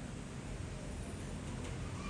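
Steady low background noise of the hall, a faint even hiss with a low rumble and no distinct events: room tone during a pause in the preaching.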